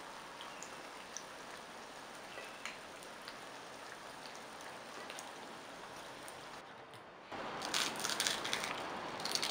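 Bottle gourd fritters deep-frying in oil: a steady sizzle with scattered small pops. About seven seconds in it gives way to the louder, crisp crackle of a fried fritter being torn apart by hand.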